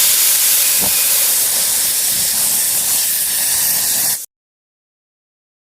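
Pressurized spray hissing steadily for about four seconds, then cutting off abruptly.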